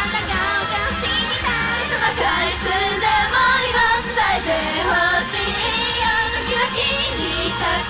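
Japanese idol pop song performed live through the venue's PA, with female singing over a backing track.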